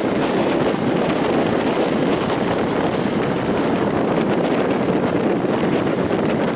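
Strong wind blowing hard across the microphone: a loud, steady rushing noise.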